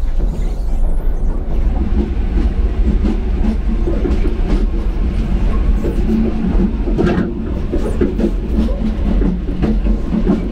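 Royal Railway passenger carriage rumbling and rattling as the train runs along the track, heard from the doorway between cars, with a sharper knock about seven seconds in.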